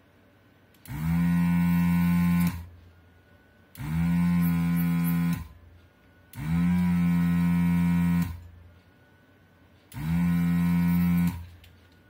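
Pro'sKit SS-331H desoldering gun's vacuum pump switched on four times, each run a steady loud hum of about a second and a half that spins up quickly and cuts off sharply. It is sucking molten solder off the pins of a tactile switch so that the switch can be pulled from the board.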